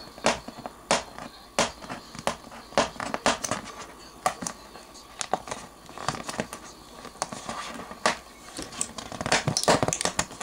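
Fingernails picking and scratching at the seal sticker on a MacBook Pro box, working it loose: irregular scratches and small clicks, coming thicker near the end.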